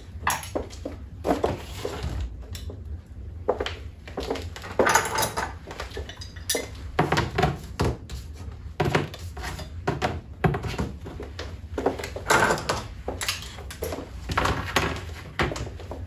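Metal bicycle hand tools (wrenches, pliers, cutters, screwdrivers) being set down one after another on a sheet of cardboard on a workbench: irregular clinks and knocks.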